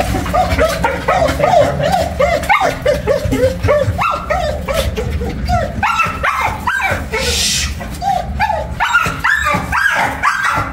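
Pit bull puppies yipping and whining in a fast, unbroken run of short high cries, several a second.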